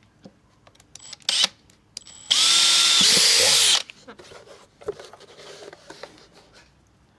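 Power drill with a long 4.5 mm bit drilling holes in a vehicle airbox. A short blip of the trigger comes about a second in, then the drill spins up, runs steadily for about a second and a half, and winds down.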